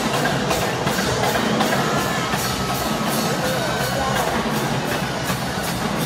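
Marching band drumline playing a steady, fast cadence of evenly spaced drum strikes, with scattered voices from the crowd over it.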